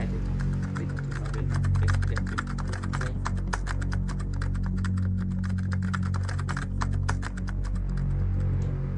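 Fast, continuous typing on a computer keyboard, many key clicks a second, over a low steady musical drone.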